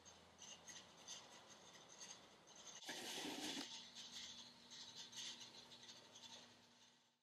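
Faint metal-on-metal scraping and rattling from a bent steel strip handled against the sockets of a vise-mounted socket bender, with a click and a short louder rasp about three seconds in.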